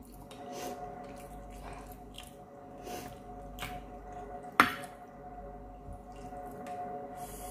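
Close-up mukbang eating sounds: a run of short, wet slurps and squelches as instant noodles in broth are sucked up and chewed. About four and a half seconds in comes one sharp click, the loudest sound, from a utensil knocking the glass dish.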